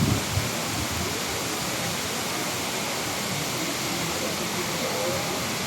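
Steady rushing roar of the Marmore Falls, a large, tall cascading waterfall, as an even wash of noise.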